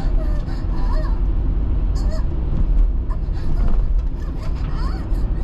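Steady low road and engine rumble of a car being driven, heard from inside, with short faint pitched sounds that bend in pitch over it.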